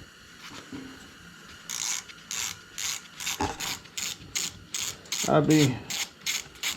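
Hand ratchet wrench clicking in steady strokes, about three a second, as a bolt is worked on a small engine.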